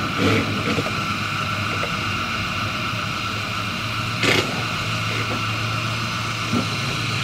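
Steady low mechanical hum, like a motor or engine running, with one brief knock about four seconds in.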